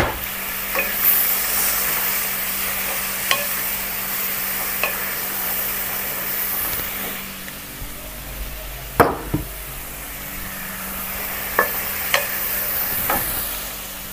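Chilli sambal sizzling in a wok over a gas flame, with a few scattered clicks and knocks, the loudest about nine seconds in. The sizzle grows a little quieter about halfway through, over a steady low hum.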